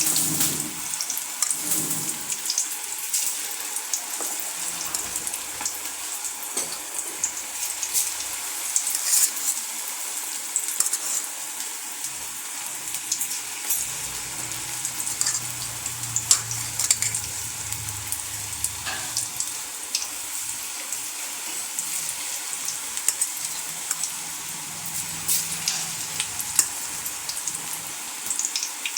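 Raw-plantain pakoda batter deep-frying in hot oil in a kadai: a steady sizzle with many small crackles and pops.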